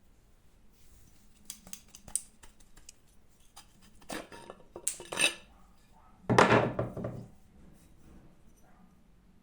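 Metal objects clinking and clattering as they are handled: a few light clicks, then louder clinks about four and five seconds in, and the loudest clatter, with a dull knock in it, about six and a half seconds in.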